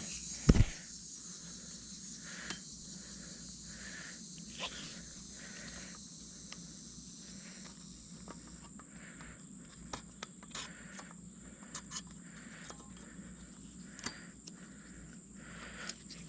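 Insects trilling steadily in the trees, with the higher part of the buzz dropping away about halfway through. Over it, tree-saddle climbing gear being handled: one loud thump about half a second in, then scattered light clicks and rustles of rope and metal hardware against the trunk.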